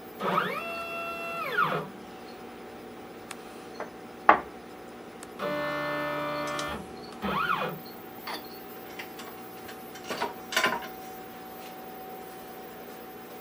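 CNC router's stepper motors jogging the Z axis while the height is set: a whine that ramps up in pitch, holds and ramps back down, twice, with a steady tone for about a second and a half in the middle. A few sharp clicks fall between the moves.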